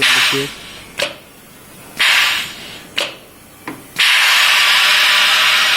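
Host wafer baking machine hissing in short bursts with clicks about once a second, then a loud continuous hiss from about four seconds in, as the countdown ends and the cutting stroke comes.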